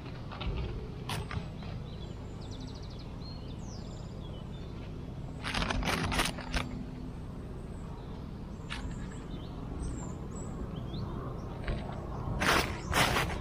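Dry leaves and twigs rustling and crackling as hands set a string snare on the forest floor, in a short cluster just under halfway through and a louder one near the end, with a few single snaps between. Faint bird chirps in the background.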